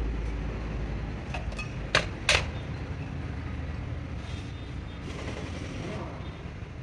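A vehicle engine running with a steady low rumble that slowly fades, and two sharp knocks about two seconds in, a third of a second apart.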